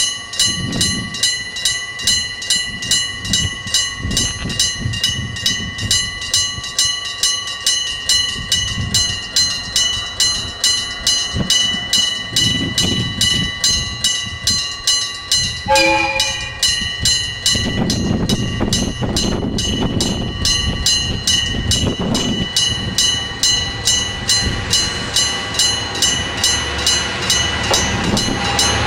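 Electric striking-bell alarm of a Tsugaru Railway level crossing ringing in rapid, even strokes, a little under three a second. About halfway through a train gives a short horn blast, and the low rumble of the train follows under the bell.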